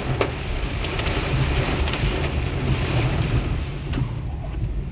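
Heavy rain hitting a car's roof and windshield, heard from inside the car, with scattered sharp drop hits over the low rumble of the car driving. The rain's hiss thins out about four seconds in.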